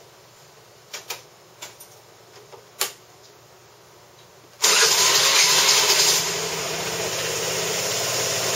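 A few light clicks, then about halfway through the Vespa LX150's single-cylinder four-stroke engine starts suddenly. It runs loud for a second or so, then settles into a steady idle.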